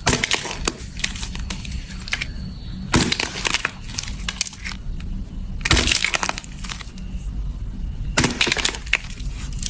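Slime being squeezed and pressed by hand, crackling and popping in four short bursts over a low handling rumble.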